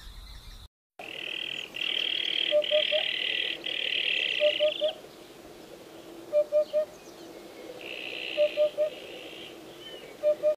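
Eurasian hoopoe singing its 'oop-oop-oop' song: groups of three short, low hooting notes, repeated about every two seconds, five times from about two and a half seconds in. Behind it is a loud, high buzzing that comes and goes in stretches.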